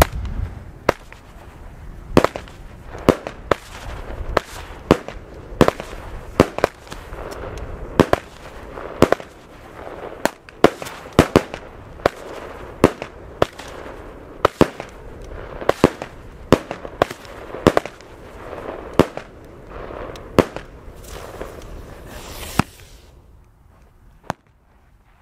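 Fireworks going off in a rapid run of sharp bangs, about one and a half a second, with crackling between them. A hiss rises just before the bangs stop near the end.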